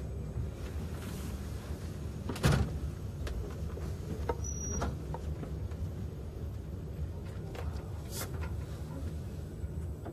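Steady low rumble inside a moving train carriage. A few short sharp clicks and knocks sound over it, the loudest about two and a half seconds in.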